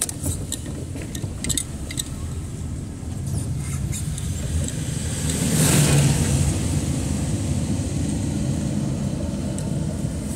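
Car driving slowly on a wet street, heard from inside the cabin: steady engine and tyre rumble, with a louder swell of road hiss about six seconds in.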